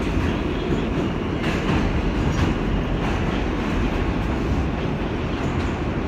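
R160A subway car running underground, heard from inside the car: a steady rumble of wheels on rail with a few faint clicks from the track.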